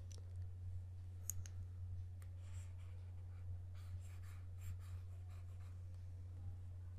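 Faint clicks and short scratchy strokes of a stylus on a drawing tablet as on-screen ink is erased, over a steady low hum.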